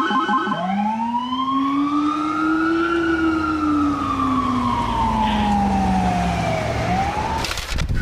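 Police siren with a Federal Signal Rumbler low-frequency siren: a fast pulsing siren tone switches about half a second in to a slow wail that rises in pitch for a couple of seconds and falls back over about four more, with a deep low rumble underneath that builds from the middle. It starts to rise again and cuts off near the end.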